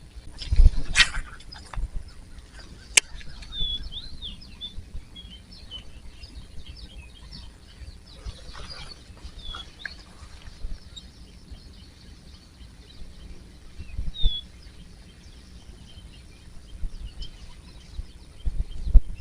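Small birds chirping outdoors, with scattered short, curving notes. A loud knock or bump comes about a second in, and there is a sharp click a couple of seconds later, with low thumps near the end.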